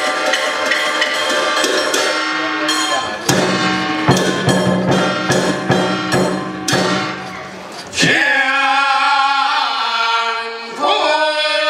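Sichuan opera music: a percussion-led band playing, with a run of sharp strikes from about three to seven seconds in. About eight seconds in, a voice begins singing long, wavering held lines over lighter accompaniment.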